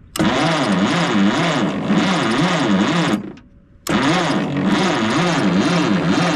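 Electric starter cranking the 1957 Case 310 Terratrac's engine over in two bursts with a short pause between them, its pitch rising and falling evenly as each compression stroke loads it; the engine turns over but does not fire. It is being cranked to check for spark at the distributor points.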